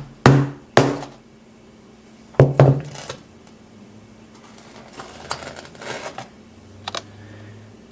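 Frozen Coca-Cola ice being cracked and pried apart by hand: a few sharp knocks and clicks with scattered crackling between them.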